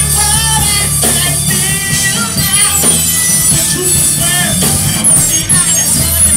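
Rock band playing live, with steady bass notes, regular drum hits and a singer's voice.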